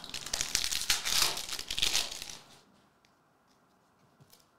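Foil trading-card pack wrapper of a 2022-23 Parkhurst Champions hockey pack being torn open and crinkled by hand for about two and a half seconds, then it stops; a few faint clicks of cards being handled follow.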